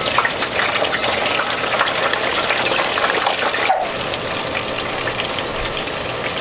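Hot oil sizzling in a deep fryer, a steady hiss with a short break a little past halfway.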